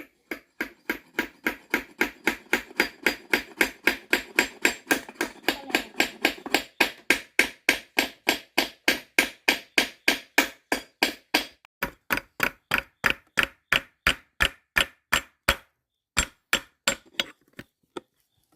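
A hammer striking wood in a fast, steady rhythm, about three blows a second, pausing briefly twice.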